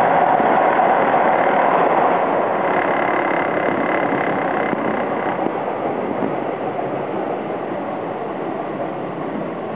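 Toronto subway train on TTC Line 1 running through the tunnel and into a station, the rumble of wheels on rails getting gradually quieter as it pulls in, with a faint high whine for a few seconds in the middle.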